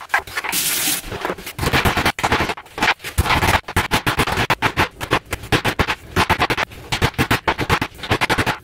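Metal meat tenderizer mallet pounding venison steaks on a wooden cutting board: a rapid, uneven run of loud thuds.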